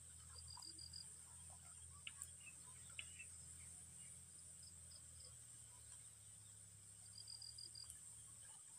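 Faint rural outdoor ambience: insects keep up a steady high-pitched drone, with a short rapid chirping trill near the start and another near the end, and a few faint ticks in between.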